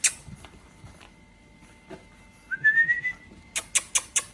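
A person whistles to call the puppies, a short whistle rising in pitch, about two and a half seconds in. It is followed by a quick run of about five sharp clicks near the end.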